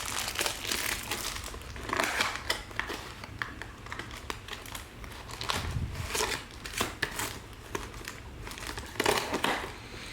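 Crinkling and crackling of wrapping as Topps Chrome Sapphire soccer card packs are handled and opened, with many small irregular clicks.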